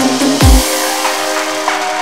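Electronic psychedelic trance music: one deep, falling bass hit about half a second in, then held synth tones with no kick drum under them.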